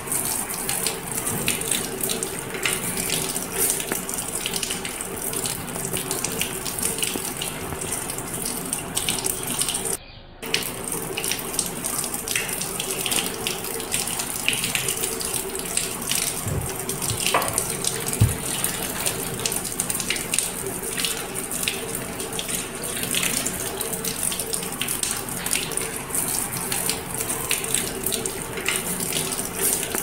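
Ring-necked parakeet gnawing and crunching at a round object held in its foot: a dense, continuous run of crackles and clicks over a steady hiss, cutting out briefly about ten seconds in.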